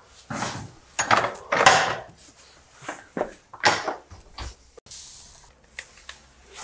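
Handling noise and clothing rustle against a phone's microphone, with scuffs and a few sharp knocks on wood, as someone goes through a doorway and down to a lower wooden deck. The sound comes in irregular surges rather than a steady run.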